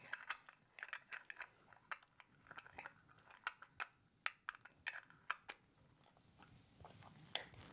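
Quiet, irregular sharp clicks and ticks from a RED Komodo 6K cinema camera and its rig cage being handled, as a knob is turned and a connector is plugged in; some clicks have a short high ring, and one near the end is a little louder.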